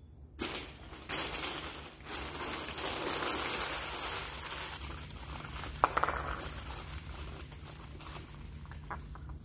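Paper crinkling and rustling as Christmas ornaments are wrapped by hand, with a sharp click about six seconds in.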